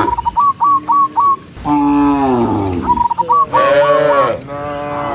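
Cows mooing: several long, deep calls that fall in pitch. Between them comes a run of short, high, hooked chirps, about four a second.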